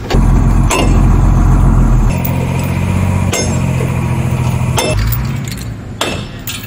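An engine running with a deep, steady drone that shifts in pitch and level twice, under a few sharp clanks of a steel bar striking the steel truck chassis frame.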